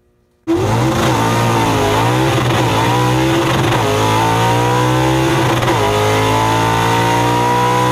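Drag-racing gasser's engine at full throttle during a pass, heard from inside the cab. It starts about half a second in, with the revs climbing, dipping about two seconds in, falling sharply at a gear shift near six seconds, then climbing again.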